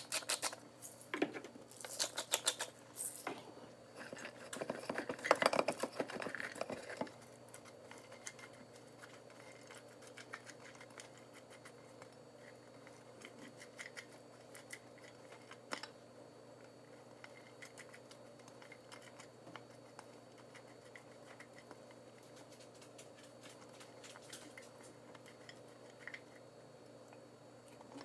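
A hand-twisted spice grinder cracking and clicking in rapid strokes for the first few seconds, then a spoon stirring in a stainless steel bowl with occasional light clinks and scrapes.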